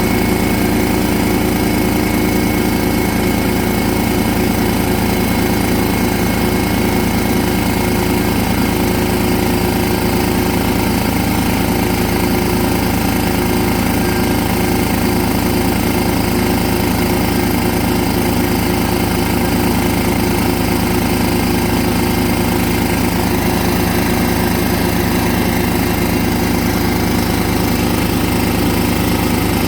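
DeWalt D55168 15-gallon air compressor running steadily, its pump building pressure in the tank. Just after reassembly, it is pumping properly again, much better than the slow pumping it had before.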